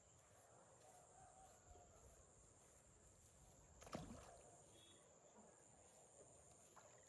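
Near silence with a faint, steady high-pitched insect drone, and one short thump about four seconds in.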